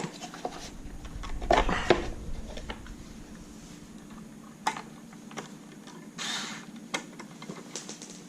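Scattered knocks and metallic clinks of tools and parts being handled, with a cluster of louder knocks about two seconds in and a short rustle near the six-second mark.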